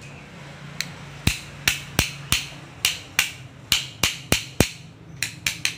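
Claw hammer striking the metal gearbox of a reciprocating saw: about fifteen sharp, ringing metal-on-metal knocks, roughly three a second, starting about a second in and quickening near the end. The blows seat the drive gear, which has been raised on a washer shim so that it meshes with the worn motor pinion.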